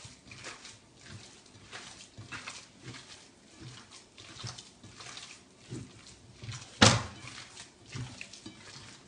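Hands kneading minced chicken and grated onion for chicken koobideh kebab in a glass bowl: an irregular run of soft squishing and slapping as the mixture is worked to an even consistency, with one loud thump about two-thirds of the way through.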